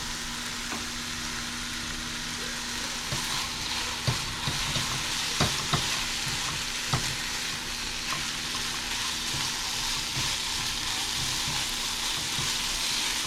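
Sliced steak and onions sizzling steadily in a hot pan, with a few sharp clicks of a utensil against the pan as they are stirred.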